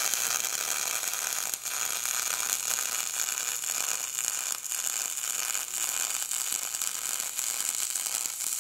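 MIG welding arc on aluminum, fed by a spool gun: a steady crackling hiss as a bead is run along a bulwark stanchion, with a brief break about one and a half seconds in.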